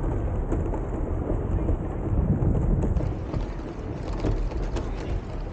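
Low, uneven rumbling of wind buffeting the microphone, with scattered faint clicks.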